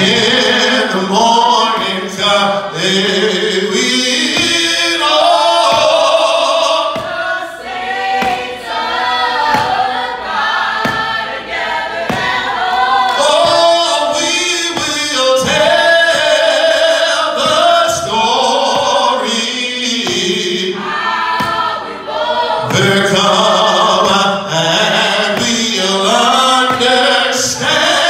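Gospel singing led by a man's voice, in long drawn-out lines.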